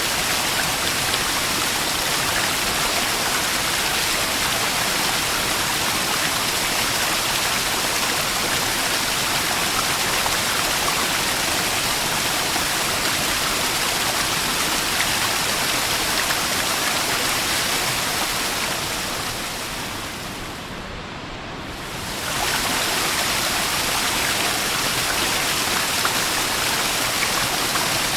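Small waterfall splashing and rushing steadily. About twenty seconds in, the sound fades down, losing its hiss, then returns abruptly to full level.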